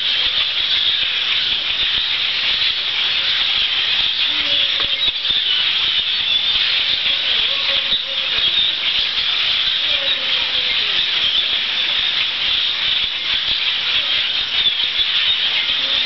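A huge migrating flock of birds passing overhead: thousands of high calls blending into a loud, steady, hissing chatter.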